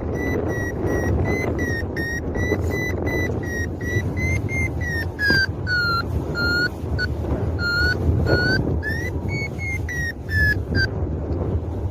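Paragliding variometer beeping in rapid short pulses, signalling lift: the pitch sits high, drops lower about halfway through and rises again near the end. Strong wind buffets the microphone throughout.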